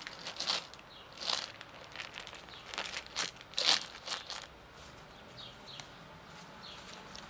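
Dry fallen leaves crunching and rustling underfoot in short, irregular scuffs, the loudest a little over a second in and at about three and a half seconds, fewer and fainter in the last few seconds.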